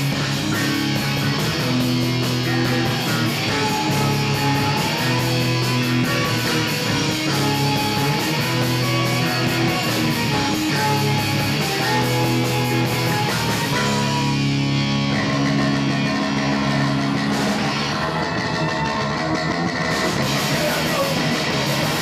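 Live rock band playing an instrumental passage led by electric guitar, with sustained chords over a drum kit.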